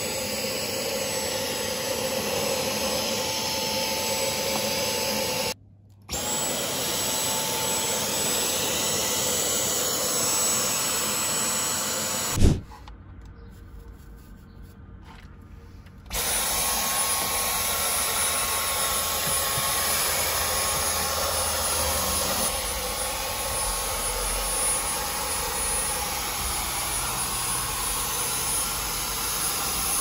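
Dyson V10 cordless vacuum's motor running with a steady high whine while the vacuum works through a brush tool. It cuts out briefly about six seconds in, then after a sharp click about twelve seconds in it goes much quieter for three or four seconds before running again.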